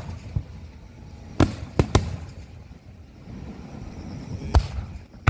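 Aerial firework shells bursting in sharp booms: one about a second and a half in, two close together just after, and another near the end, with low rumbling between them.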